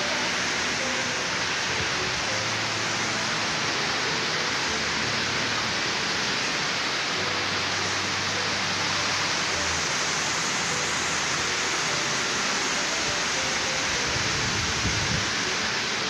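Steady rush of a waterfall: an even, unbroken hiss of falling water.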